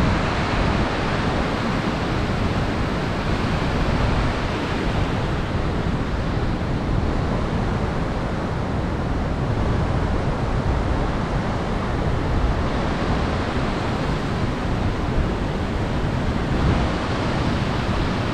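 Heavy monsoon flow of water pouring through a dam, a steady loud rush of water.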